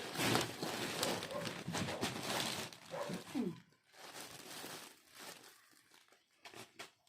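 Gift wrapping or packaging crinkling and rustling as it is handled, dense for the first three or four seconds, then fainter, scattered rustles.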